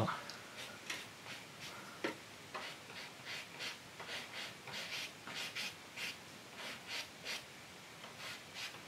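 A brush working oil paint in quick, faint scrubbing strokes, about three a second, pausing briefly near the end, with one sharp click about two seconds in.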